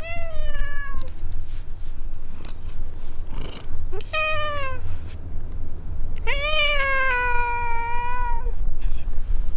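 Tabby cat meowing close up, three times. Each meow falls in pitch, and the last one, about two seconds long, is the longest. A steady low rumble runs underneath.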